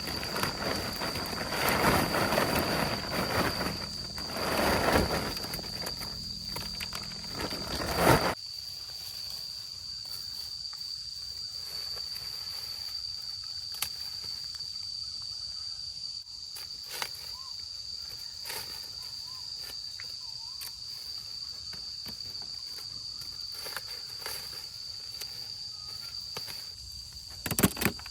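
A steady, high-pitched insect drone runs throughout. Loud rustling and handling noise fills the first eight seconds and stops abruptly, leaving the drone with a few faint clicks.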